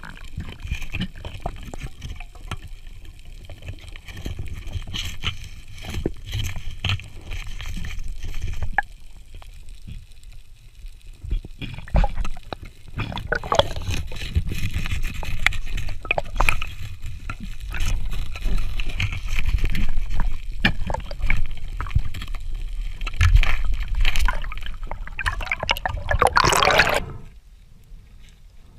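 Underwater sound recorded by a diver's camera: water gurgling and sloshing over a low rumble, with scattered clicks and knocks. Near the end a loud rush of noise swells, then cuts off, and the sound goes quieter.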